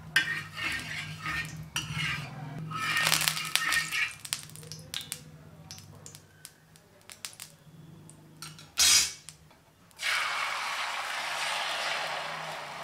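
A silicone spatula scrapes and clatters across an oiled pan, spreading the oil, with a loud knock near nine seconds. About ten seconds in, beaten egg mixture poured into the hot oil sets off a steady sizzle.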